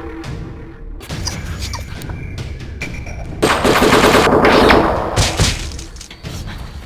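Rapid gunfire, with the heaviest burst about three and a half seconds in, lasting about a second and a half.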